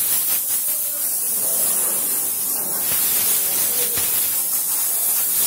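Compressed-air blow gun hissing steadily as it blasts water off a freshly washed scooter's seat and bodywork, with one short click about four seconds in.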